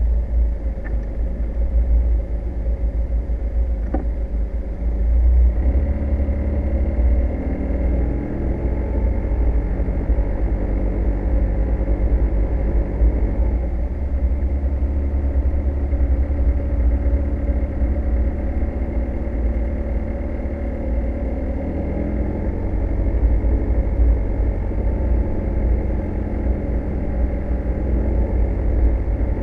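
A vehicle driving along, its engine and road noise over a constant deep rumble; the engine's pitch rises a few times as it speeds up.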